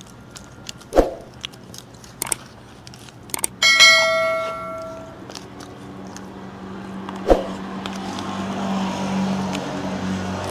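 A bright bell-chime sound effect, the ding of a subscribe-button animation, rings out suddenly about three and a half seconds in and fades over a second or so. Around it come a few sharp clicks and knocks, and a low hum swells in the second half.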